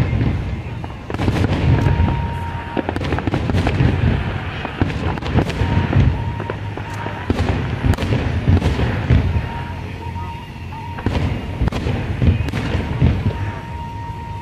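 Fireworks display: a rapid, continuous run of aerial shell bursts, deep booms mixed with sharp cracks, many in quick succession.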